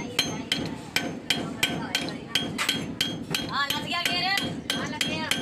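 Rapid hammer blows on steel at a truck's rear axle hub, about four a second, each strike ringing with a metallic clang.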